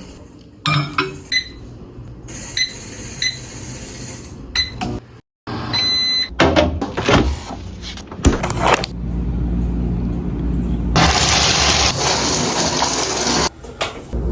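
A string of short everyday sounds cut one after another: several short electronic beeps, a few clicks and knocks, and then a loud steady hiss lasting about two and a half seconds.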